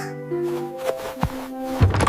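Background music with held instrument notes and a few light percussive hits.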